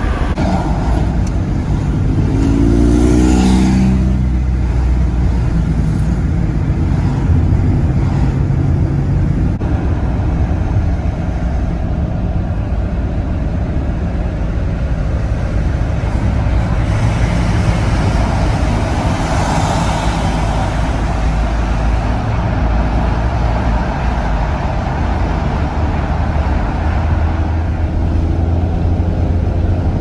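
Steady low rumble of engine and tyre noise heard inside a moving car's cabin. About three seconds in there is a brief falling tone, and a louder hiss of road noise comes and goes near the middle.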